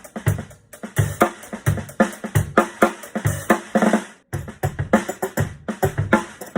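Drum kit groove, kick and snare, with a tambourine laid on the snare head so each snare hit jingles and rattles. The beat stops briefly about four seconds in, then carries on.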